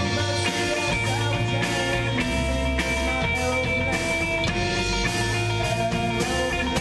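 Rock band playing live: electric guitar and a drum kit with cymbals, steady and loud.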